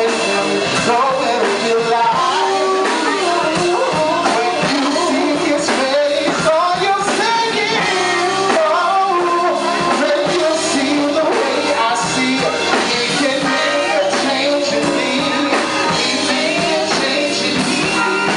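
Live band playing, with a voice singing over it.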